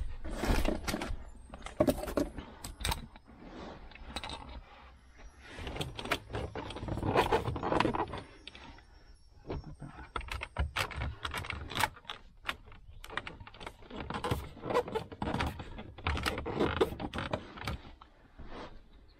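Irregular clicks, knocks and rustling of hands working under a pickup's dashboard, handling parts and wiring while fitting a trailer brake controller.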